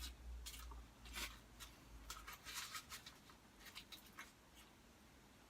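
Faint, irregular scrapes and clicks of cutlery against a plate or food container while eating, thinning out toward the end.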